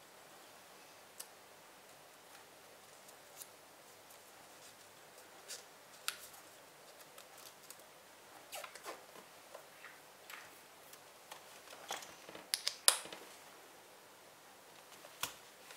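Clear plastic A6 ring binder being handled: scattered light taps and clicks of fingers on the plastic cover and rings, with a quick cluster of sharper clicks about 13 seconds in.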